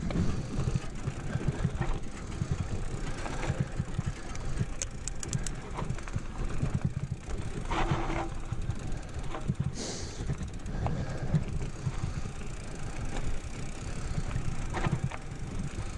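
Low, uneven rumble of a mountain bike rolling slowly over stony ground, picked up through a rider-mounted action camera, with a few short rattles and scrapes along the way.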